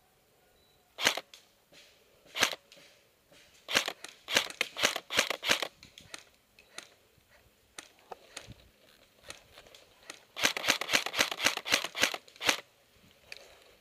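M16-style airsoft rifle firing single shots in quick succession. There are two lone shots, then a string of about seven, then near the end a faster string of about a dozen, about five shots a second.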